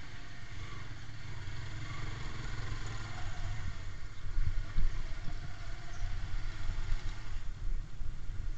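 Motorcycle engine running at low speed as the bike is ridden, a steady low rumble with a few sharp knocks about halfway through.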